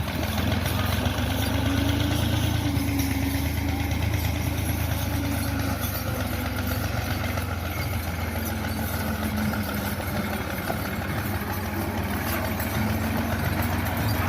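A vehicle engine idling steadily, with a low, even hum.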